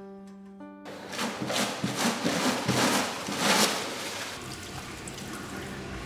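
Rushing water in washroom plumbing: it builds about a second in, surges for a few seconds with the loudest push near the middle, then eases to a steady hiss. A brief steady tone sounds during the first second.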